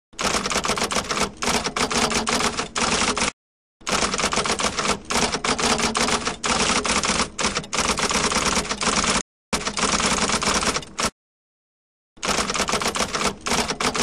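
Typewriter sound effect: keys striking in rapid runs of clacking keystrokes, with short silent breaks about three, nine and eleven seconds in.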